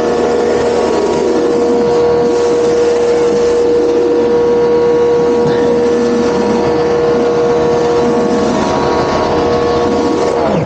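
Pressure washer motor and pump running steadily with the water jet hissing as it sprays decking, then cutting off suddenly at the end as the trigger is released.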